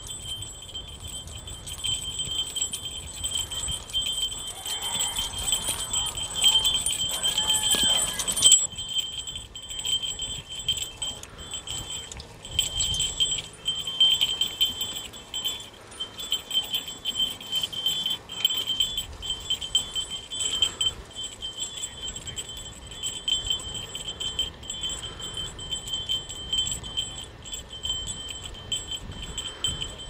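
Continuous high, flickering metallic jingling from the harness of a Belgian draft horse pulling a single-blade plough, denser and louder for the first eight or so seconds.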